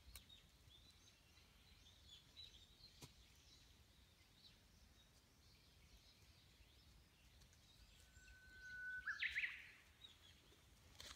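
Faint bird calls in woodland, with one louder whistled note about eight seconds in, held steady for about a second and then sweeping upward.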